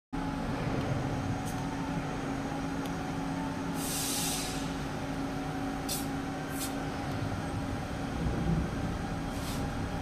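Steady hum of knitting-mill machinery, with several short hisses, the longest about four seconds in.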